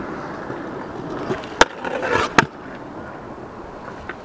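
Stunt scooter wheels rolling on rough asphalt, with a sharp clack about a second and a half in, a short scrape, and a second loud clack just under a second later, as the scooter hits and lands; quieter rolling follows.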